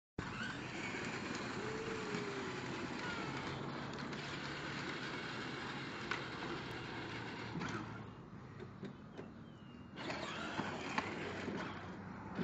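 Power Wheels Jeep Wrangler ride-on toy driving over concrete: its battery-powered electric motors and gearboxes whirring and its hard plastic wheels rolling on the pavement. The sound drops away for a couple of seconds past the middle, then comes back.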